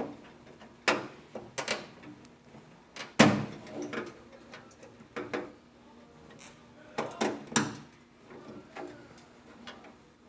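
Beltline weatherstrip clips on a 1967–72 GM truck door being pried loose with a clip removal tool: a run of irregular sharp snaps and clicks, the loudest about three seconds in.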